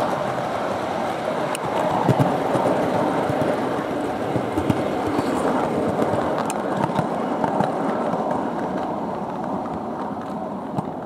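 Heljan O gauge Class 37 model locomotive running on garden railway track: a steady rumble of its motor, gears and wheels, with scattered clicks as the wheels cross rail joints. It gets quieter near the end.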